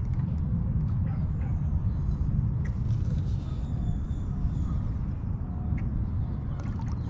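Lakeshore outdoor ambience: a steady low rumble with faint, scattered bird chirps and a few light clicks.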